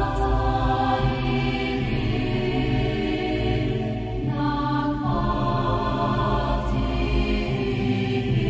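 Slow, solemn background music of held chords over a steady low drone, the harmony shifting about every two to three seconds.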